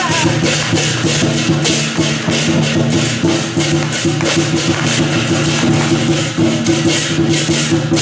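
Lion dance percussion of drum, gong and cymbals, playing a fast, steady beat of loud, evenly repeating strikes.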